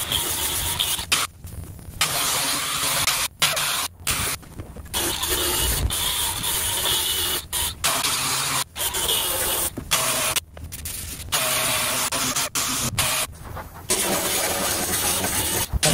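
Air-powered sander running on fiberglass in repeated bursts, a dense whirring noise that stops and restarts about seven times.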